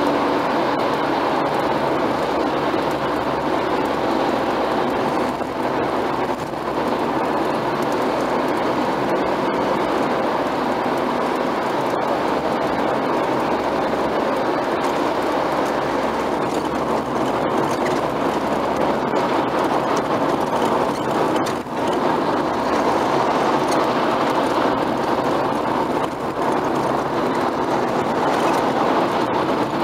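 Steady tyre, road and engine noise inside a car cabin driving at motorway speed.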